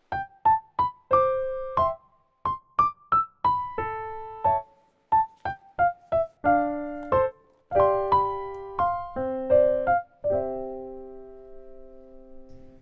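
Background music: a light piano melody of short, separate notes that settles into a held chord fading away near the end.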